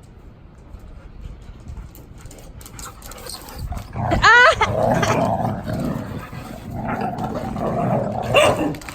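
Dogs vocalising, quiet at first. About four seconds in a dog gives a short high yelp, followed by several seconds of growling, and another yelp near the end.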